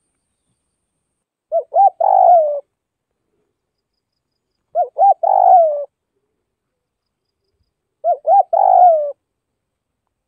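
Spotted dove cooing: three identical phrases about three seconds apart, each two short notes followed by a longer note that falls in pitch.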